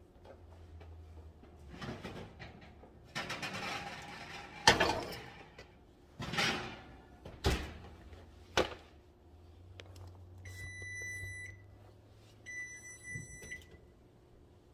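Kitchen oven door opened, a heavy Dutch oven knocked and slid onto the rack, and the door shut with a thunk, followed by two long electronic beeps from the oven's controls with a low hum underneath.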